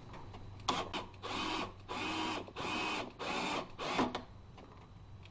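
Power drill motor whirring in about five short bursts of roughly half a second each, its pitch dipping and rising a little within each burst.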